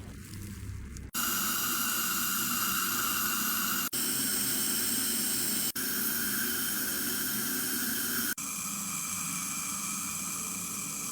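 High-speed dental handpiece (air-turbine drill) running steadily, a loud hiss of air and water spray under a high whine. It comes in several cut segments with brief breaks about 4, 6 and 8 seconds in, the pitch shifting slightly between them.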